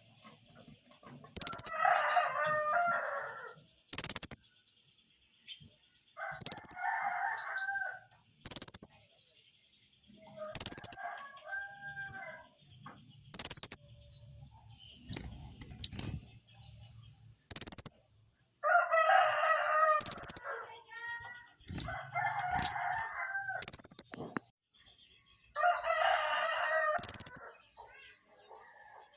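A caged pentis raja flowerpecker repeating short, sharp, very high chirps every second or two. A rooster crows about six times behind it.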